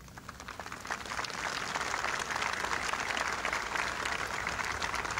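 Audience applauding. The clapping swells over the first second or so, then holds steady.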